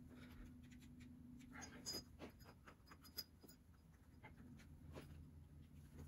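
Faint handling sounds over near silence: a few small scrapes and clicks as a rubber propane hose is worked onto a gas furnace burner's fitting.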